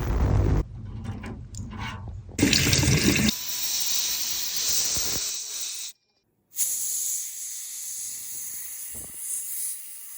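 Running water and splashing as a grimy metal watch is washed, in several short cut-together shots with a brief dead silence about six seconds in.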